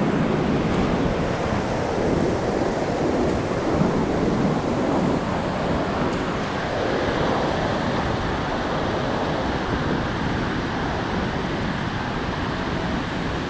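Ocean surf breaking and washing up over the sand, a steady rushing wash, with wind buffeting the microphone.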